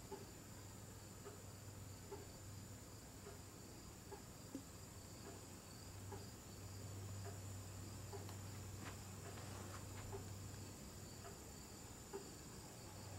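Near-silent room tone: a faint, steady high-pitched whine over a low hum, with a few faint scattered ticks.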